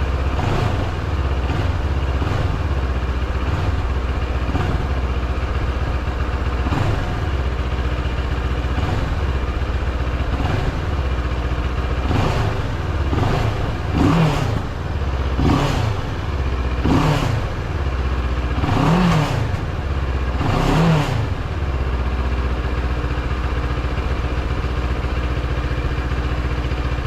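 CFMoto 700MT's parallel-twin engine idling in neutral and blipped on the throttle, light blips about every two seconds and then a run of harder revs in the middle, each rising and falling back in pitch. It is being revved to check for the TFT screen cowl's vibration rattle, which the owner finds cured after tightening its mounts.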